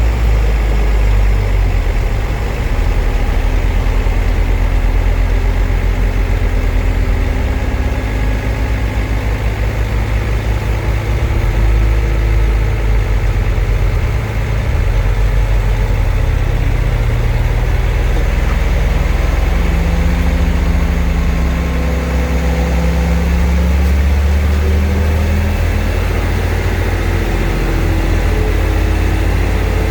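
Diesel engine of a Shantui bulldozer running steadily as it works dirt, a deep continuous rumble whose pitch shifts up and down with the load, climbing for a while about two-thirds of the way through.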